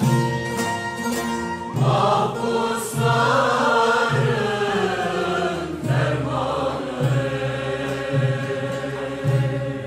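Mixed choir and Turkish folk ensemble of violins and bağlama performing a Turkish folk song (türkü). The choir sings a phrase starting about two seconds in, and the instruments carry on alone from about seven seconds.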